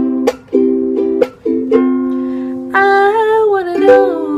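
Solo strummed string accompaniment, probably a ukulele, with sharp strokes and the chord ringing between them. About two-thirds of the way in, a voice comes in, holding a sung note that bends in pitch.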